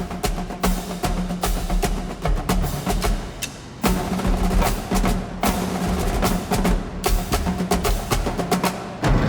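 Background music: a percussion-led track of rapid drum hits over a held low bass note, dipping briefly before a strong hit about four seconds in.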